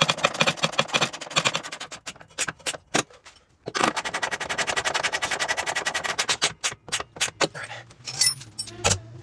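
A person making rapid, rattling mouth sound effects like machine-gun fire, about ten clicks a second, in two runs with a short pause for breath in between.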